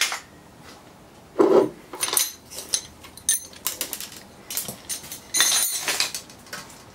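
Metal hand tools and parts clinking and clattering on a steel workbench and against the compressor: a dull knock about a second and a half in, a run of light metallic clinks, then a longer rattling clatter near the end.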